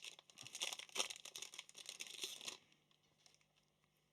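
Trading card pack wrapper being crinkled and torn open, a quick flurry of small crackles that stops about two and a half seconds in.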